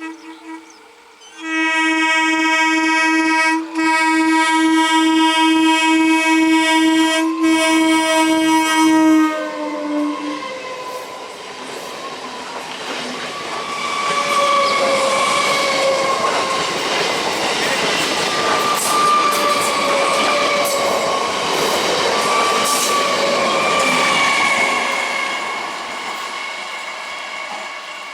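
An Indian railway train gives one long blast of its horn, about eight seconds, which sags in pitch as it cuts off. The train then runs past with a steady rumble and clatter from its wheels, and a wavering metallic squeal rises over it for about ten seconds before the noise fades.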